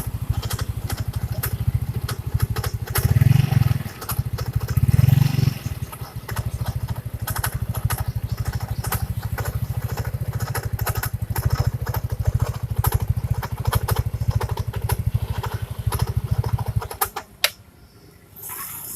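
First-generation Yamaha Mio scooter engine idling with a rough, rhythmic rubbing noise from the CVT area, which the mechanic suspects is something rubbing at the front of the CVT. The throttle is blipped briefly twice near the start, and the engine shuts off near the end.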